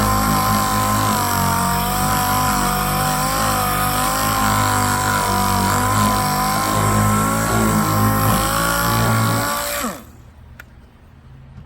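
Power sander motor running steadily with a high whine, then switched off about ten seconds in, its pitch dropping as it winds down.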